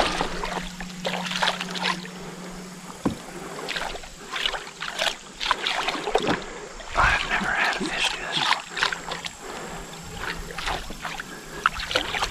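Water sloshing and splashing irregularly beside a kayak as a lure is swept through a figure 8 at the surface, with a few sharp knocks.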